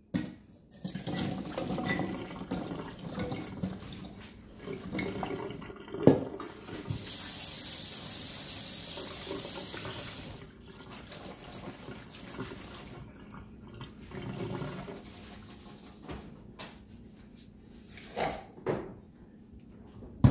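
Kitchen sink tap running over diced raw potatoes in a metal mesh colander as they are rinsed, with potatoes tumbling and a steel bowl and colander clanking against the sink. The water runs steadily for about three seconds in the middle, with sharp metal knocks about six seconds in and a few more near the end.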